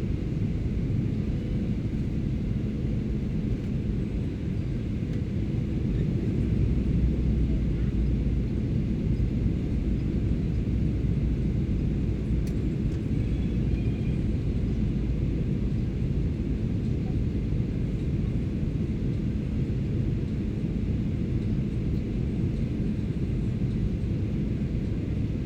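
Steady low drone of a Boeing 737-800 in flight, heard inside the passenger cabin: the CFM56 engines and the airflow over the fuselage.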